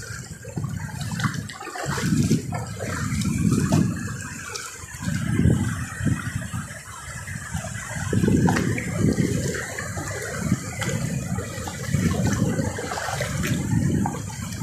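Shallow river water rushing over stones, a steady splashing hiss with a low rumble that surges and falls back every second or two.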